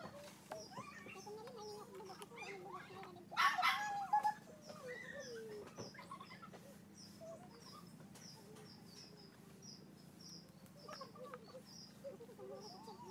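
Birds and chickens calling. A short high chirp repeats about twice a second, under lower wavering clucking calls, with one brief louder call about three and a half seconds in.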